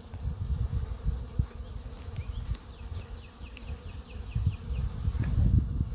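Honeybees buzzing as they pour out of a freshly opened shipping package, over an uneven low rumble. About two seconds in there is a quick run of short, high, falling chirps lasting a second and a half.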